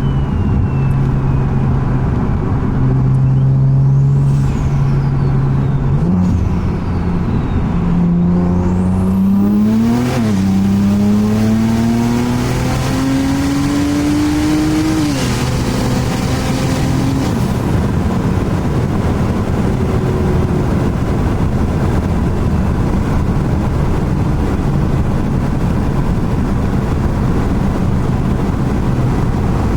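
BMW 335i's turbocharged straight-six accelerating hard, its pitch climbing and dropping sharply at upshifts about ten and fifteen seconds in. It then settles to a steady cruise with road noise.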